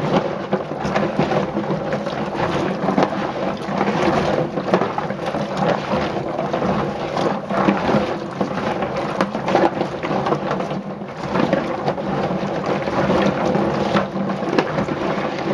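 Black walnuts in their shells being stirred and scrubbed by gloved hands in a stainless steel sink of water: a continuous wet clatter of nuts knocking against each other and the sink, with water sloshing.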